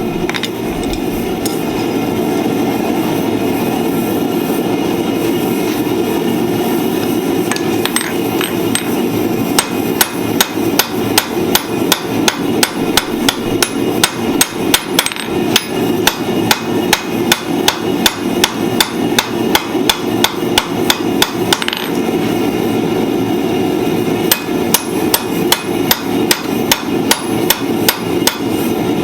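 Hand hammer striking hot iron on an anvil while forging tongs: a steady run of blows at about two a second, starting about a third of the way in, with a short pause about three quarters of the way through. A steady rushing noise sits underneath throughout.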